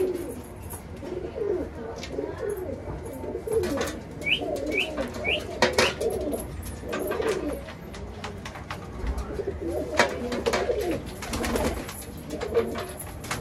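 A flock of domestic pigeons cooing, many overlapping low, wavering calls at once. A few sharp knocks and clatters come through, the loudest about ten seconds in, and three short high chirps come a little after four seconds.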